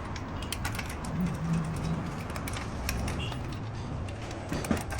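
Scattered light metallic clicks and ticks of hand tools and parts being handled during work on a car's wheel hub, over a low steady hum.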